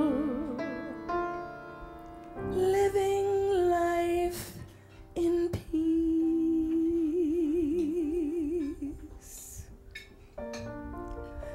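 A woman singing a slow ballad with long held notes and wide vibrato, over quiet instrumental accompaniment.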